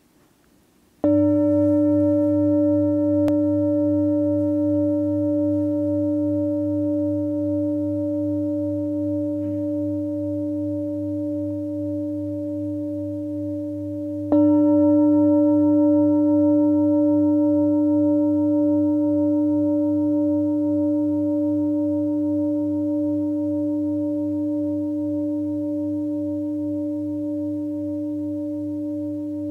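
A singing bowl struck twice, about a second in and again about fourteen seconds later. Each stroke rings on for many seconds with several steady tones and a slow wavering hum, fading only slowly. This is the bell that opens a guided meditation sitting.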